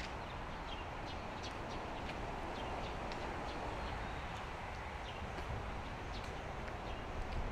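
Footsteps, as short irregular clicks, over a steady outdoor background hum.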